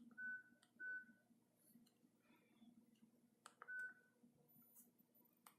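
Key beeps from a QMobile SP3000 mobile phone as its keys are pressed: short single-pitched beeps, two in quick succession near the start and one more past the middle, with sharp clicks in between.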